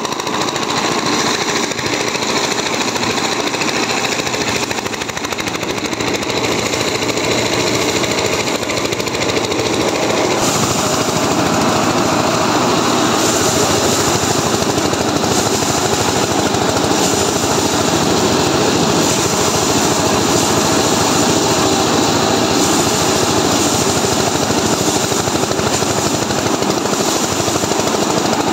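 Diesel-engine-driven paddy thresher running, a rapid steady clatter of engine and spinning spiked drum as sheaves of rice are held against the drum to strip the grain. The sound grows louder and brighter about ten seconds in.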